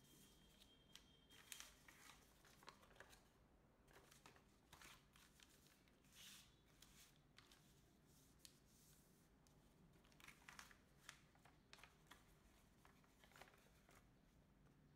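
Faint rustling and crinkling of a sheet of origami paper being folded and turned over by hand, in scattered short bursts with quiet stretches between.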